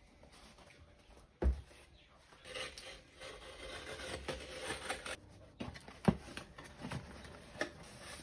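Packaging being handled at the start of an unboxing: a thump about a second and a half in, then rubbing and scraping of the box and wrapping, followed by several light knocks.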